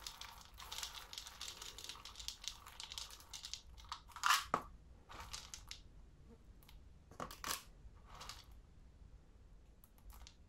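Dry dog kibble rattling as it is poured into a plastic dog bowl, then a few scattered rustles and clatters as handfuls are scooped back out, the loudest clatter about four seconds in.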